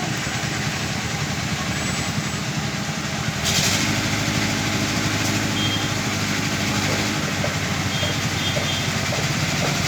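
Heavy diesel machinery engines running steadily. About three and a half seconds in there is a short hiss, and one engine picks up to a higher, stronger note for a few seconds.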